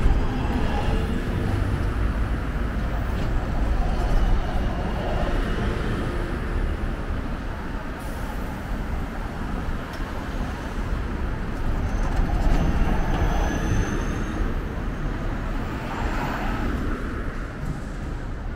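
Road traffic passing at a city junction: an electric city bus goes by close at the start, then cars and another bus pass in a steady rumble that swells each time a vehicle goes by.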